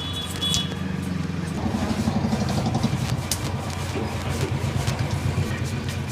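Motor vehicle engine running, a low rumble with a fast even pulse that grows stronger about a second and a half in, with a few sharp clicks over it.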